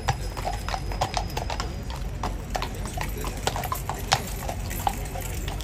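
Household Cavalry horses' shod hooves clip-clopping at a walk on stone paving, several horses' steps overlapping in an uneven run of sharp strikes.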